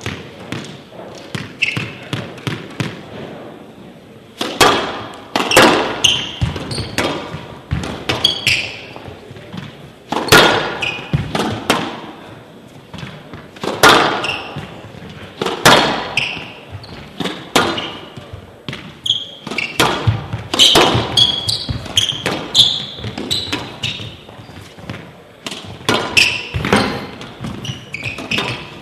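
Squash rally: the ball cracking off rackets and walls in sharp hits every second or two, beginning about four seconds in, with shoes squeaking on the court floor between shots.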